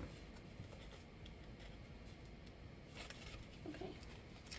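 Faint rustling and small clicks of hands working at a small pouch to get it open.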